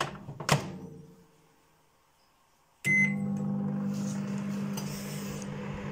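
Two sharp clicks, then a quiet pause; nearly three seconds in, a microwave oven gives a short beep and starts running with a steady low hum.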